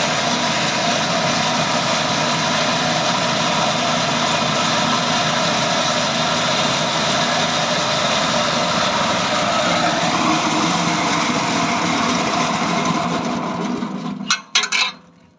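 Engine-driven grass chopper machine running steadily while grinding corn kernels. Near the end it runs down and stops, followed by a few sharp knocks.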